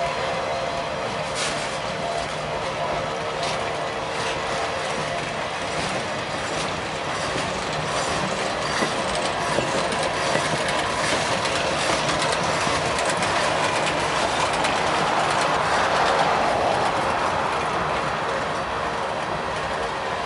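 Freight train cars rolling past with a steady rumble and rattle, occasional clicks of wheels over the rail joints and a faint held squeal from the wheels; the noise swells somewhat louder near the end.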